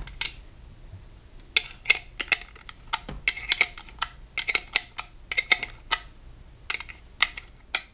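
A box wrench clicking and tapping against a steel locking nut and bracket while the nut is loosened off the deflector's mount: short, light metal clicks in quick runs of three or four.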